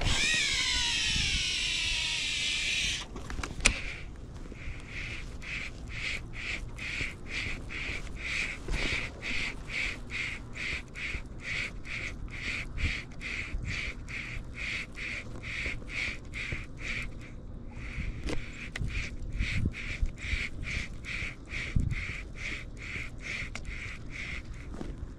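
Daiwa Tatula TW300XH baitcasting reel whirring as the spool spins out on a cast, falling in pitch as it slows, with a sharp click about four seconds in. Then a steady rhythmic ticking of the reel being cranked, about two beats a second, with one short pause.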